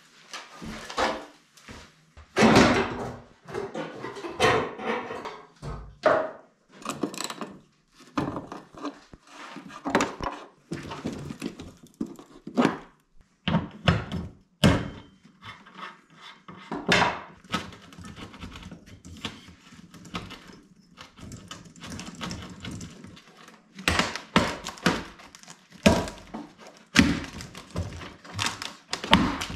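Irregular knocks, clunks and clatter of hand tools and steel body panels as a Nissan Skyline R33 is stripped down: a front fender lifted off, and a ratchet working on fasteners in the engine bay.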